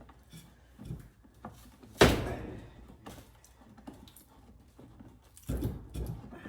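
Hammer blows on an NP242 transfer case, knocking the two case halves apart to break the sealant between them. Light knocks come first, then one sharp, loud strike about two seconds in, and two heavier thuds near the end.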